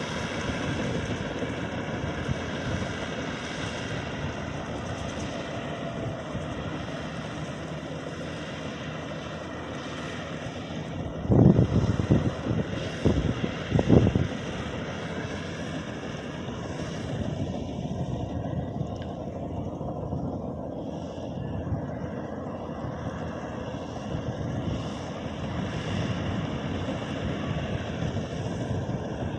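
Maxxi Bimo 102 Top combine harvester running with a steady engine drone. About a third of the way through come a few loud, low bursts lasting a couple of seconds.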